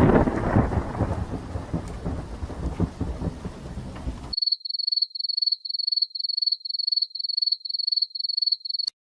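A thunderclap cracks and rumbles over steady rain, and the sound cuts off abruptly after about four seconds. A rapid series of short, high electronic beeps follows, about three a second, ending with a click.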